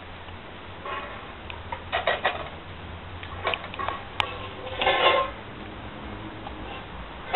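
Golden doodle puppies giving a few short yips and barks, with clicks and clatter among them.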